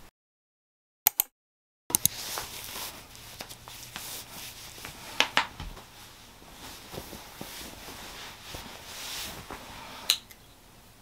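Clothing fabric rustling as a person hurriedly pulls a sweatshirt on over a T-shirt, with scattered sharp clicks and knocks. It starts about two seconds in, after near-total silence broken by two short clicks, and ends with one sharp click near the end.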